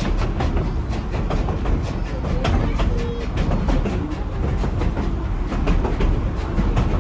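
Narrow-gauge train rolling along the track: a steady low rumble with quick, irregular clicking and clatter from the wheels on the rails.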